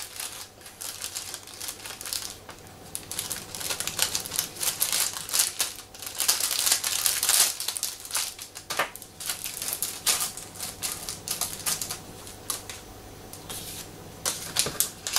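A plastic blind-bag wrapper crinkling and crackling as it is torn open and handled, a dense run of rapid crackles that is loudest in the middle.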